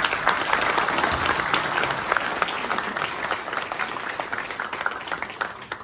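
Audience applauding: many hands clapping together, thinning out to a few claps near the end.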